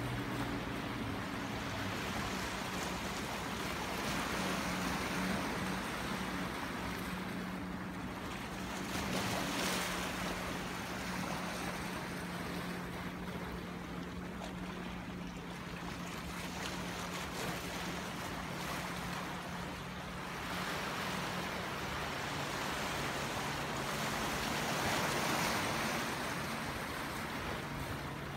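Waves of a rough sea surging and breaking in slow swells that rise and fall every few seconds, with a steady low hum underneath.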